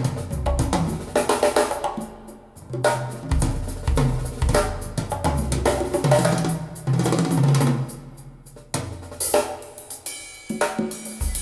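Drum-led music playing through a pair of Radiotehnika S-90 loudspeakers: kick drum, snare, hi-hat and cymbals over a heavy bass line.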